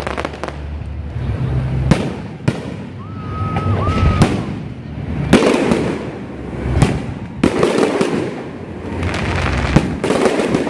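Aerial fireworks bursting overhead: a string of sharp bangs every second or two, several followed by a spreading crackle.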